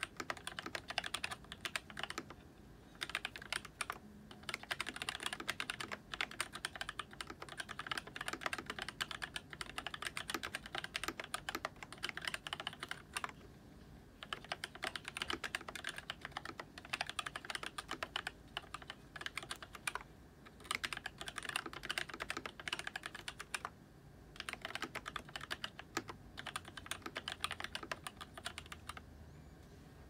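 Typing on a mechanical keyboard with lubed Gateron Black Ink linear switches in a KBDFans acrylic 5-degree case, with a PC plate and Hydro DSA keycaps. A dense run of keystroke clacks is broken by a few brief pauses and stops near the end.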